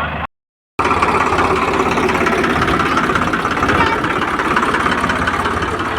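Heavy diesel engine of the earthmoving machinery running steadily under load, a dense rough clatter; the sound drops out completely for about half a second near the start, then resumes.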